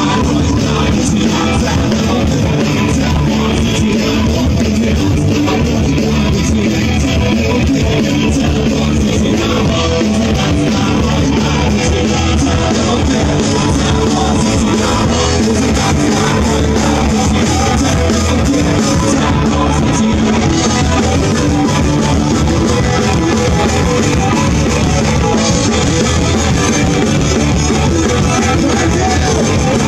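Live rock band playing loudly through a PA: amplified electric guitar over a drum kit, a stretch with no sung words.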